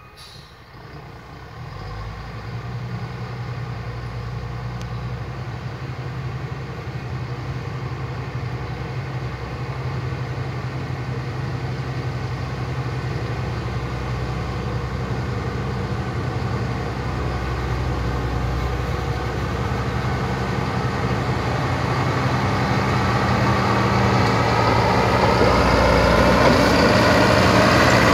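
A motor vehicle's engine running steadily, growing gradually louder towards the end.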